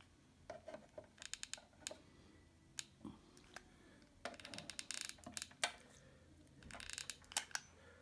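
Hot glue gun's trigger clicking in three short runs of faint clicks as glue is pressed out onto a plastic holder, with a few light taps between.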